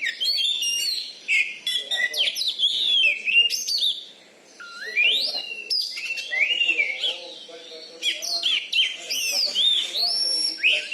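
Oriental magpie-robin (kacer) singing a rapid, varied song of whistled notes and rising and falling sweeps, with a short break about four seconds in.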